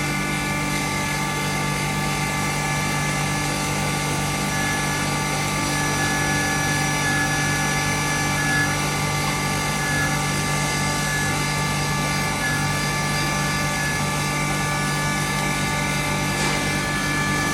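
A 2 HP turmeric grinder machine running steadily under its electric motor, a constant mechanical hum and whine made of several steady tones.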